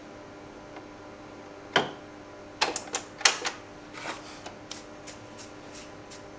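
Clicks and knocks of a vinyl LP being handled and set down on a turntable's platter. One sharp knock comes about two seconds in, then a quick cluster of clicks, then a few lighter ticks, over a faint steady hum.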